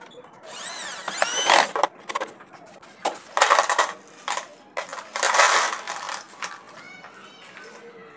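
Power drill driving a screw through a plastic jug, its motor whining up and down in two short runs. Then loose metal wood screws rattle and clink as they are tipped from a cardboard carton into the plastic container, in two pours.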